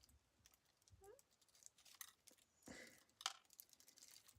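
Near silence, with a few faint clicks and rustles from small plastic packaging being handled.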